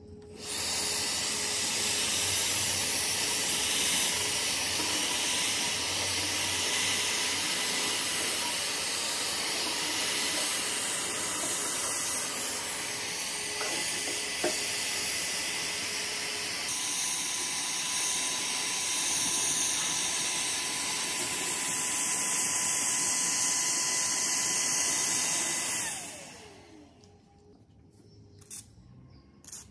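Vacuum cleaner running steadily with a high whine as its nozzle sucks loose rust and dust off a rusty comb binding machine. It is switched off about 26 seconds in and its pitch falls as it winds down, followed by a few light clicks.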